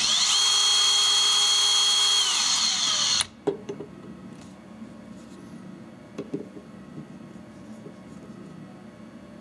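Makita cordless drill spinning a 3D-printed helix looper spooling mechanism at a steady speed, a high whine that holds its pitch and then winds down and stops about three seconds in. After that only a few faint clicks from the parts being handled.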